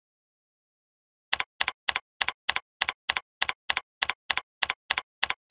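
Computer keyboard keystrokes: a run of evenly spaced, identical clicks, about three a second, starting a little over a second in.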